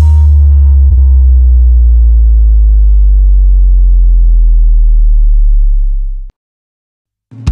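A long, loud bass note in an electronic slow-bass remix slides slowly down in pitch, then cuts off abruptly about six seconds in. After a second of silence the drum beat comes back in at the very end.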